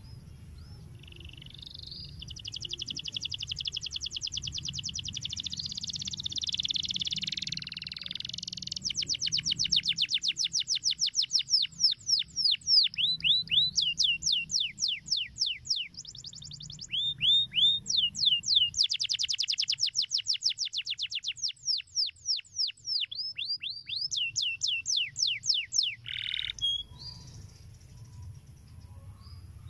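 Domestic canary singing a long song. It opens with a fast, dense trill, then moves into long runs of rapid, repeated downward-sweeping notes, breaking off briefly twice and stopping near the end.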